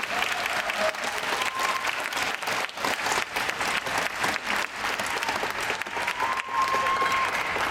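Audience applauding steadily after the music ends, with a voice or two calling out above the clapping.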